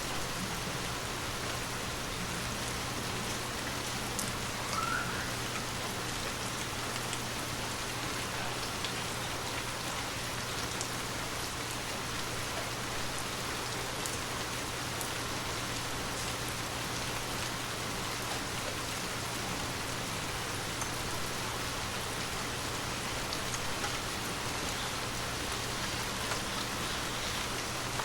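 Gentle, steady rain falling, an even hiss with scattered drop ticks, over a faint low steady hum. A brief rising chirp sounds about five seconds in.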